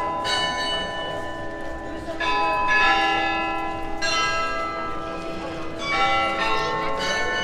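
Graz Glockenspiel's tuned bells playing a slow melody. Groups of notes are struck every second or two and each rings on into the next.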